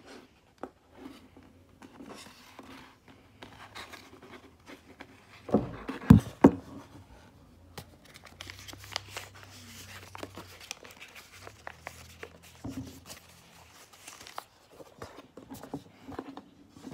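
Paper rustling and crinkling as a folded paper boat is handled, with scattered light clicks. About six seconds in come three loud knocks, the loudest sounds of the stretch.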